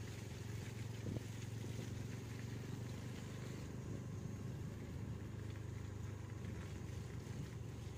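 Gran Max van's engine running steadily as it drives over a rough dirt track, a low steady drone with road and wind noise. A light knock about a second in.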